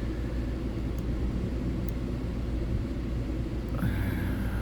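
Lock pick working the pin stack of a Brinks padlock, two faint ticks about one and two seconds in, over a steady low rumble.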